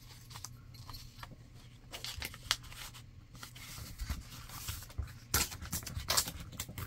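Magazine paper being handled, then torn along a metal ruler in a series of short rips from about five seconds in.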